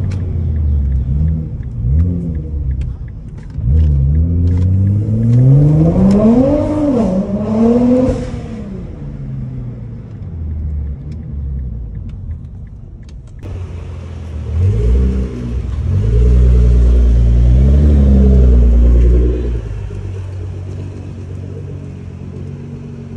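Nissan GT-R R35's twin-turbo V6 engine and exhaust revving, first heard from inside the cabin: a few quick blips, then a long rev that climbs and falls about six to eight seconds in. Later comes a second loud, deep burst of engine noise lasting about four seconds.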